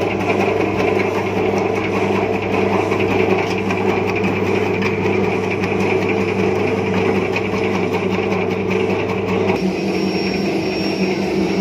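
Automatic turmeric slicing machine running steadily with a constant mechanical hum. About ten seconds in the low hum drops away and a faint high whine joins.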